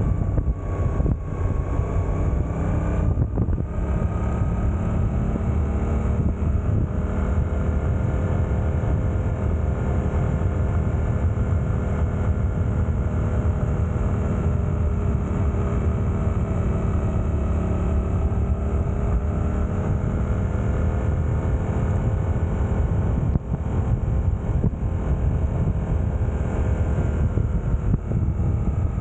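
Suzuki GSX-8S parallel-twin engine running under way in second gear at moderate road speed, its pitch gently rising and falling with the throttle. Heavy wind rumble on the bike-mounted camera's microphone sits underneath.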